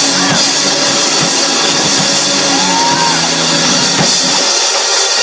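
Live church band music, loud, with a drum kit's repeated drum hits and constant crashing cymbals, and a gliding organ or voice line above.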